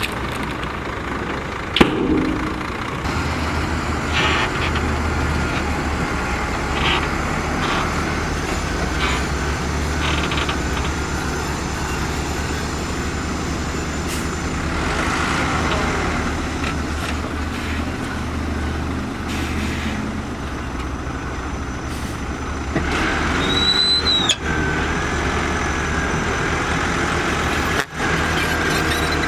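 Heavy diesel construction machinery running with a steady low rumble, with a sharp bang about two seconds in. Near the end a brief high squeal gives way to a steady high whine over the engines.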